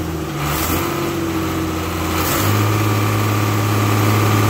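Leyland Hino inline diesel engine running with the engine bay open. About two and a half seconds in it picks up speed and gets a little louder, then holds steady at the higher speed.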